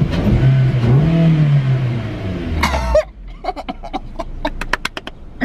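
Suzuki Swift's engine revved from inside the cabin, fitted with a Pipercross performance air filter, with loud intake noise. The pitch rises for about a second, falls back and cuts off about three seconds in. A man then laughs in short, quick gasps.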